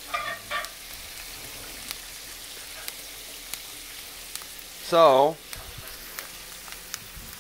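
Oyster mushrooms frying in butter over high heat: a steady sizzle with many small scattered crackles and pops.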